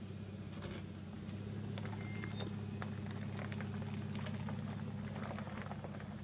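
A steady low motor hum, with scattered light clicks and crackles on top.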